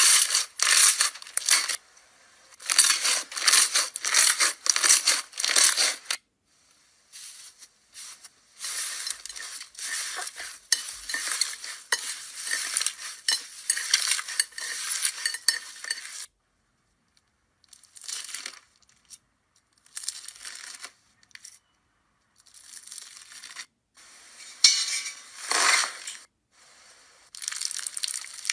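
Hands squeezing, poking and kneading slime, first glossy clear slime, then fluffy cloud slime: bursts of sticky crackling and popping, with short quiet gaps between.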